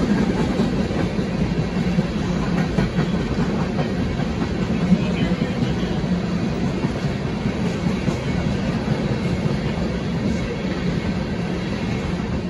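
Freight train of tank cars rolling past, with steady wheel-and-rail noise and faint clicks from the wheels. There is one sharper knock about five seconds in.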